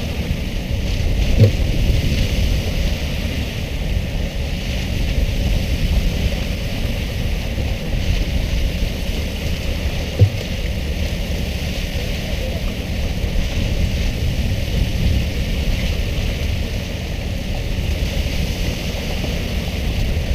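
Steady low rumble of a fishing boat's engine, with water splashing beside the hull and wind on the microphone. A sharp knock sounds about ten seconds in, and a smaller one just over a second in.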